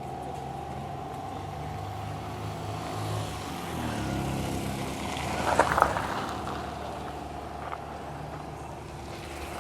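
Road traffic: vehicles running past with a steady hum, and a brief louder burst a little past halfway through.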